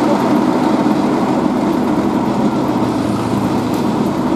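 Diesel engine of road-paving machinery running steadily.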